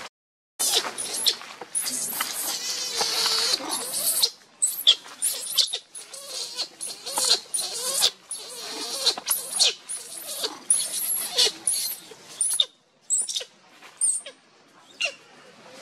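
Baby long-tailed macaque screaming in distress: one long shrill scream for the first few seconds, then a run of short, repeated cries.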